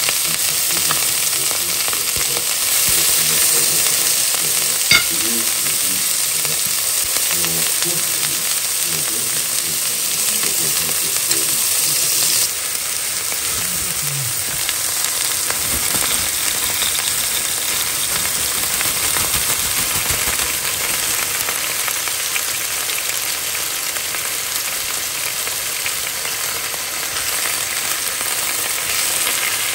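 Steak sizzling as it fries in a pan. There is a sharp click about five seconds in, and the sizzle drops a little in level about twelve seconds in.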